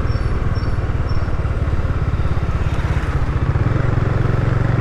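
Bajaj Dominar 400UG motorcycle's single-cylinder engine running on the road, heard through a microphone inside the rider's helmet cheek pad. Its note changes to a steadier low hum about three and a half seconds in.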